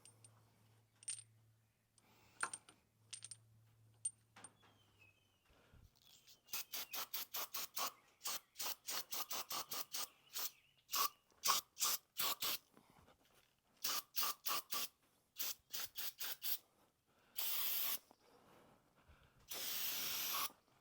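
Aerosol brake cleaner sprayed in many short, quick hissing bursts, several a second, then two longer steady sprays near the end. A few light metallic clicks come before the spraying starts.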